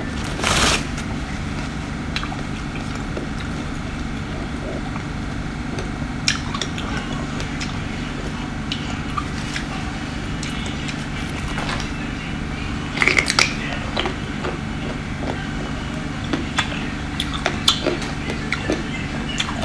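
A person eating seafood from a glass bowl of chili oil, with no talking. There is a loud slurp about half a second in, then scattered wet chewing and smacking clicks and soft clinks from the bowl. A cluster of louder smacks comes about thirteen seconds in, all over a steady low hum.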